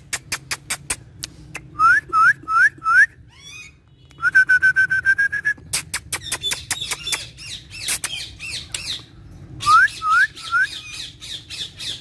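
Indian ringneck parakeet calling: runs of sharp clicks, four short rising whistled notes about two seconds in, a held whistle near the middle, then squawky chatter and three more rising notes near the end.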